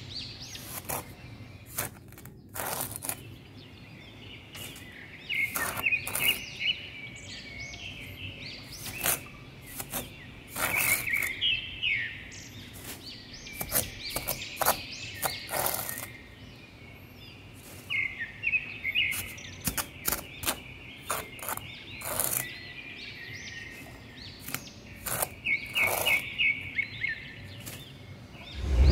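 A small spatula scraping and scooping into damp sand in short strokes, with songbirds chirping several times in quick trills in the background.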